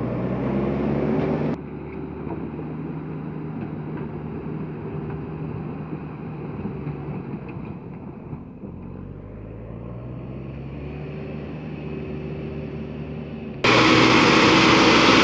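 Heavy diesel engines running: a dump truck's briefly, then a JCB backhoe loader's as it pushes mud with its front bucket, the engine pitch climbing about ten seconds in. Near the end a loud, rough rushing noise cuts in suddenly over the engine.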